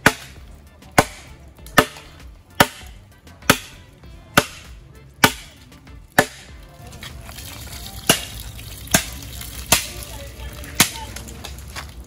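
Machete chopping: a dozen sharp strikes about one a second, with a short pause a little past halfway.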